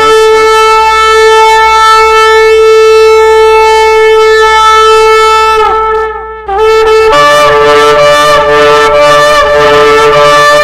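Two long, very loud trumpet-like horn blasts. The first is a single held note that sags in pitch and breaks off about six seconds in. The second, fuller blast comes after a short gap and holds to the end.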